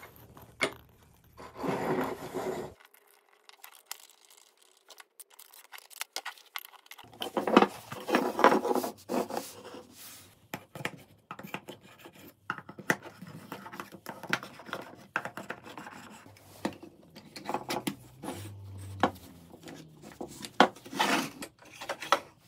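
Hands handling wooden workshop parts on a bench: scattered clicks and knocks with a few short spells of rubbing and scraping, and a near-quiet stretch of a few seconds.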